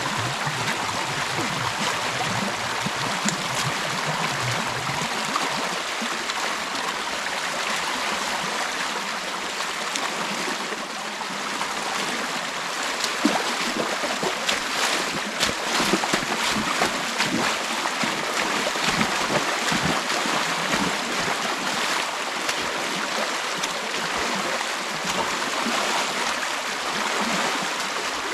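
Creek water rushing and splashing through a gap torn in a beaver dam: a steady flow with many small spatters.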